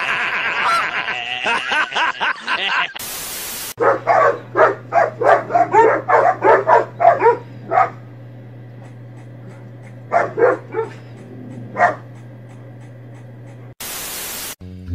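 Dogs barking rapidly, about three or four barks a second for some four seconds, then a few more barks a little later, over a steady low hum. Short bursts of static-like hiss come just before the barking and near the end.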